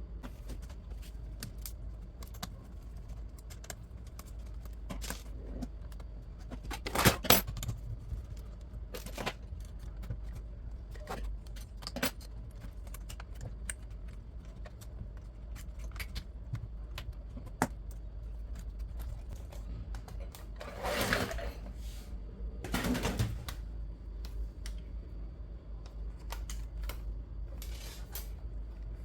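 Hands taking apart a Sony SVE15 laptop: scattered small clicks, taps and rattles of tools, screws and plastic case parts. There is a loud clatter about seven seconds in and two short scraping sounds about three-quarters of the way through, over a low steady hum.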